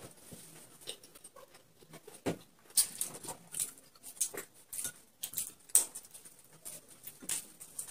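Irregular wet smacks and clicks of people chewing mouthfuls of chicken momos as fast as they can.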